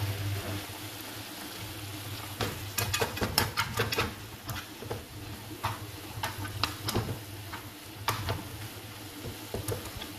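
Chopped tomatoes, onion and garlic sizzling in oil in a non-stick frying pan, stirred with a spatula that scrapes and clicks against the pan many times.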